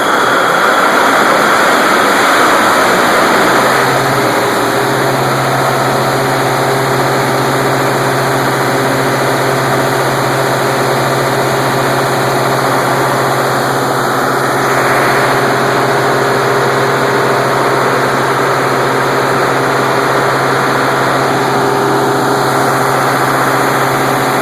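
Caterpillar 3516 V16 diesel engine of a 2000 kW generator set, just started and running up to speed, then settling into a steady run with a constant low hum from about four seconds in.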